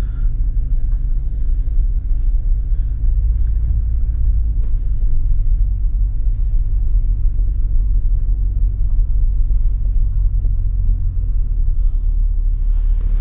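Steady low rumble of engine and road noise heard from inside the cabin of a moving Nissan Patrol Y62.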